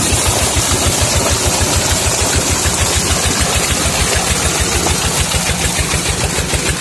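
NR 20 hp diesel engine running steadily and relaxed, not revving hard, with an even low chugging beat, driving a 6-inch Intan irrigation pump. Over it is the continuous rush of a large stream of water pouring from the pump's outlet pipe into a concrete channel.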